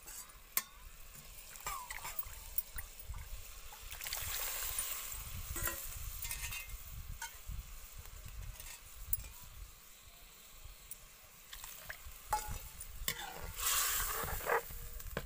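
Masala and potatoes sizzling in a metal kadhai as hot water is added and a metal ladle stirs, with scattered clinks of the ladle on the pan. The hiss swells about four seconds in and again near the end.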